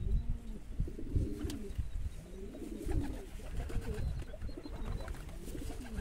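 Domestic pigeons cooing: several low coos that rise and fall in pitch, over a low rumble.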